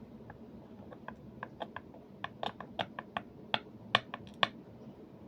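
Lock pick clicking and tapping against the pin stacks inside a PACLOCK 90A-PRO padlock: a quick irregular run of small sharp clicks that grows louder toward the end and stops about four and a half seconds in.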